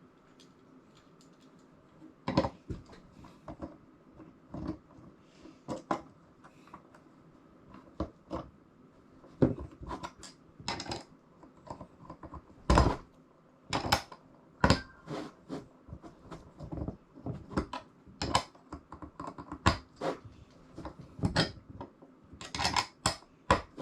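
Metal brackets, bolts and tools being handled during hand assembly: irregular clicks, clinks and knocks at uneven intervals, starting about two seconds in.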